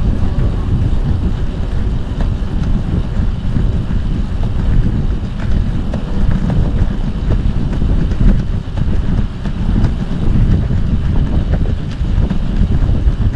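Wind buffeting the microphone: a loud, steady low rumble that rises and falls in gusts.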